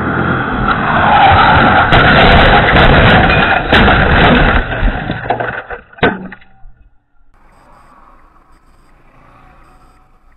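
Range Rover reversing onto a concrete driveway, heard through a security camera's microphone: loud engine and tyre noise for about five seconds with a few knocks in it, then one sharp knock about six seconds in. After that only a faint, steady hum.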